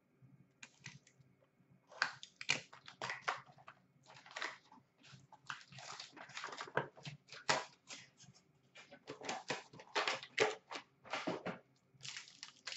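Foil trading-card packs being torn open and the cards handled: irregular crinkling and rustling of wrappers and cards sliding in the hands.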